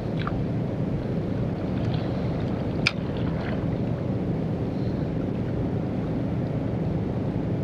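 Steady low rumble of wind buffeting the microphone at the seaside, with surf behind it, and a single sharp click about three seconds in.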